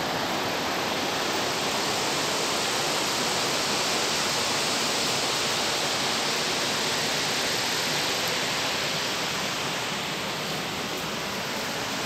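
Steady rush of a waterfall on the Paraguaçu river: an even, unbroken hiss of falling water.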